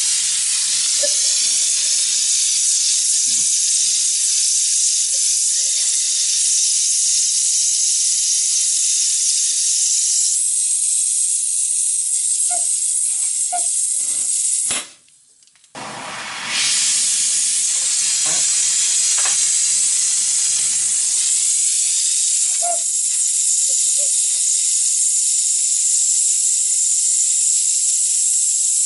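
Gas torch flame hissing steadily as it heats the end of a copper model steam-engine boiler for silver soldering. About halfway through, the hiss cuts out for a second or so, then comes back.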